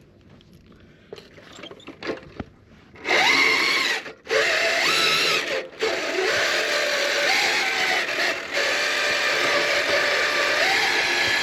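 A 1/10-scale RC crawler's electric motor and gear drive whining under throttle, the pitch rising and falling with speed. The whine starts about three seconds in, after faint scattered ticks, and cuts out briefly twice.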